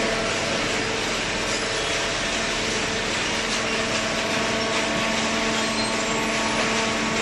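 Hydraulic cardboard baler running: a steady, loud hum from its motor and pump, with a constant noise and no let-up.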